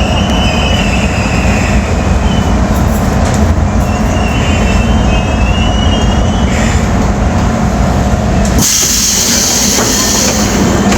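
Subway train running on the track: a steady low rumble of wheels and car, with wavering high wheel squeal twice. Near the end the rumble drops off suddenly and a loud hiss sets in.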